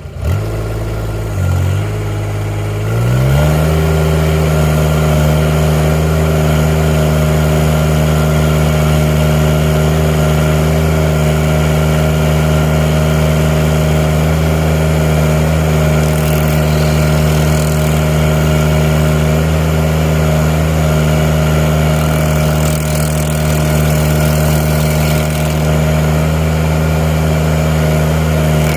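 Tobroco Giant SK252 mini loader's engine running low, then revving up about three seconds in and holding steady at high revs, powering a Klou KSG1-EX stump grinder attachment.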